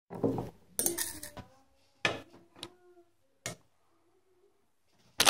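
Metal blade scraping and clinking on a ceramic dinner plate while prying soft modeling clay off it: several sharp clinks, a few of them leaving the plate ringing briefly.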